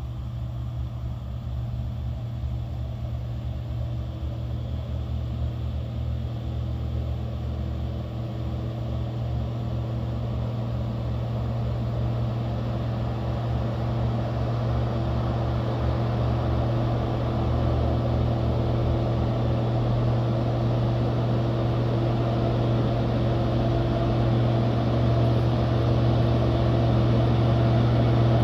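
Heavy truck's diesel engine running steadily, a low drone that grows gradually louder.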